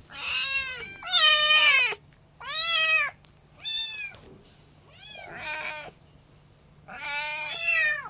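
A young kitten meowing repeatedly: six high-pitched cries, each under a second, with short pauses between. These are distress calls from a kitten shut in a cage, crying for its mother.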